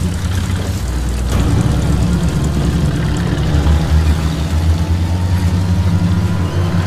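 Engine of an old Soviet army flatbed truck running as the truck drives along, a steady low drone.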